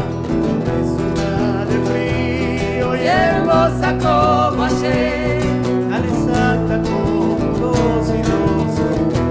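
Live folk music: strummed acoustic guitars keep up steady chords under a melody line that slides and bends in pitch, strongest a few seconds in.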